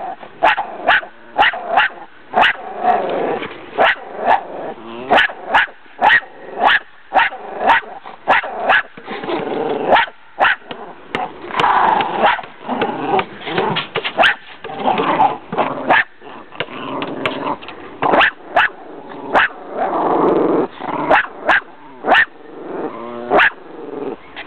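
Small dogs barking over and over in sharp, loud barks, about two a second, with short pauses now and then.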